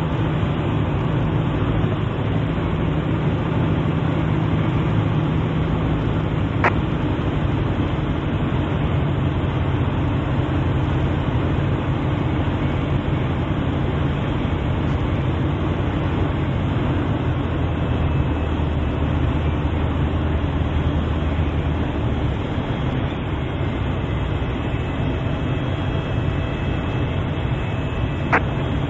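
Piper Super Cub's piston engine and propeller running steadily on final approach, with a low engine tone that shifts about 22 seconds in. There are two brief clicks, one about seven seconds in and one near the end.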